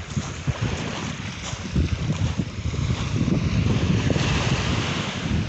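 Wind buffeting the microphone, an uneven low rumble that rises and falls in gusts.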